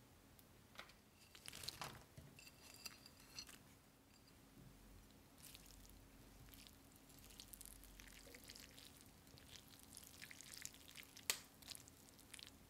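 Faint, quiet handling of a bowl of ramen: scattered soft clicks and wet ticks, then one sharp click near the end as metal chopsticks go into the ceramic bowl and lift the noodles.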